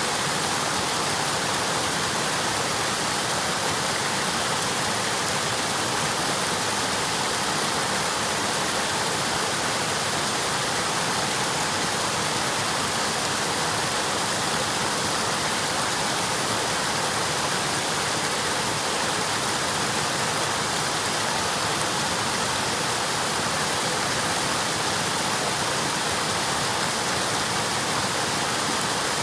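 River water flowing over rocks, a steady rushing without a break.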